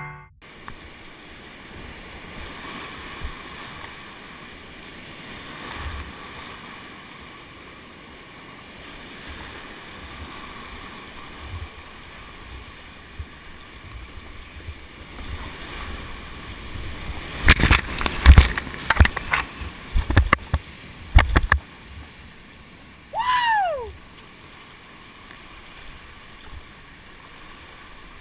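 Whitewater rapids rushing steadily around a kayak, heard from the boat. About two-thirds of the way through comes a cluster of sharp knocks and splashes, and soon after a short high call that falls in pitch.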